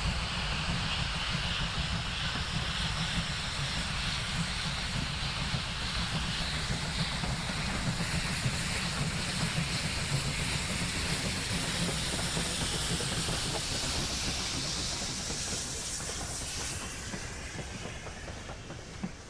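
BR 50 steam locomotive working past at close range: a steady hiss of steam over a low rumble, easing off near the end.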